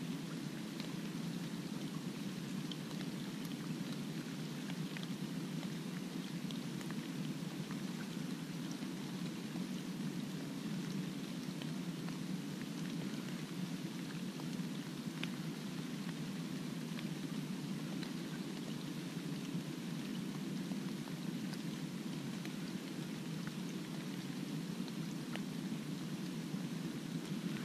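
Steady rain falling, with faint scattered ticks of single drops.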